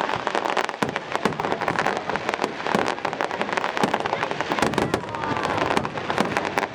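Fireworks display: a dense, rapid crackling and popping of bursting shells, with a few louder bangs among them.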